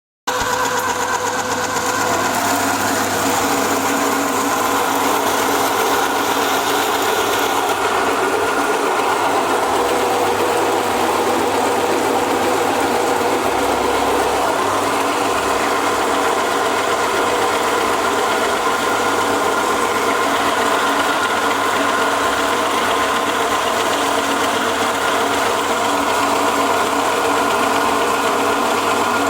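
A skin-separating (peeling/hulling) machine running steadily with a constant mechanical noise and a clear hum.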